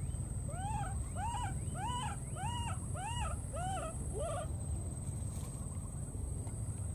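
A baby monkey calling: a run of about seven short cries, each rising then falling in pitch, roughly two a second, over a steady low rumble. The cries stop about four seconds in.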